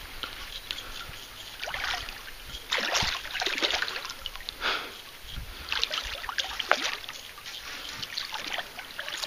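Water splashing and sloshing in irregular bursts as a hooked largemouth bass thrashes at the surface while it is reeled in.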